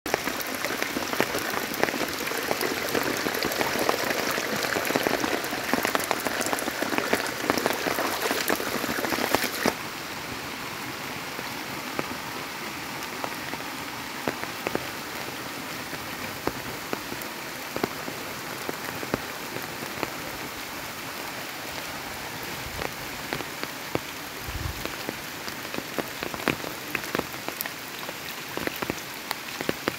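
Heavy rain falling on standing floodwater: a dense hiss full of small drop splats, louder for about the first ten seconds, then a steadier, softer patter.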